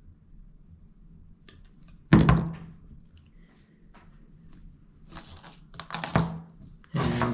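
Fishing pliers set down on a cutting board with a sharp thunk about two seconds in, followed by a few lighter knocks and rustling handling sounds as the finished trace is picked up.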